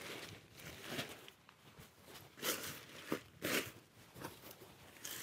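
Lightweight tarp fabric rustling and crinkling as it is folded and rolled up, in several short bursts.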